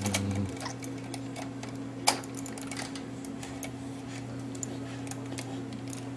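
Light, irregular clicks and taps of small hard objects being handled, with one sharper knock about two seconds in, over a steady low hum.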